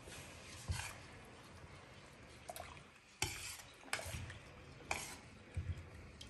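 A spoon stirring rice in boiling water in a glass pot, knocking against the pot's side about six times.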